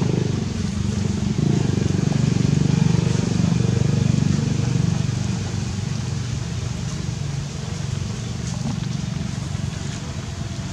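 A vehicle engine running steadily, a low hum that eases off a little about halfway through.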